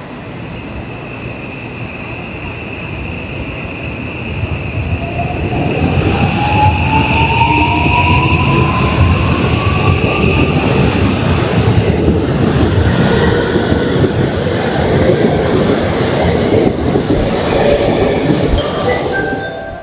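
Electric commuter train pulling out of a station and picking up speed. Its traction motors give a whine that rises in pitch over a few seconds while the wheel and rail noise grows louder, with a high steady squeal over the first half.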